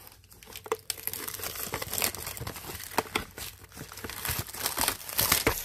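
Clear plastic shrink-wrap being peeled off a cardboard candy box, crinkling irregularly with scattered sharp crackles.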